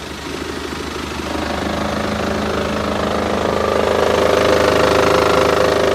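BMW N47 diesel engine idling with the automatic put into reverse: a steady extraneous drone and vibration comes in about a second in and grows louder. It is the sign of the left engine mount bracket broken off the block, which lets the engine sag toward the driver's side under load.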